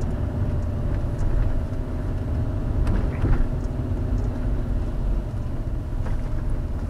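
Car engine and tyre rumble heard from inside the cabin while driving on a rough dirt road. There is a steady engine hum and a few faint knocks and rattles from the bumpy surface.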